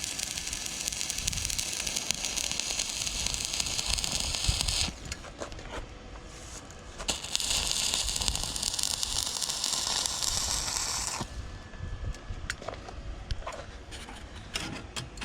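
Stick welder arc crackling and hissing steadily as a bead is laid. It stops about five seconds in, strikes again about two seconds later for another run of about four seconds, then gives way to faint scattered clicks and taps.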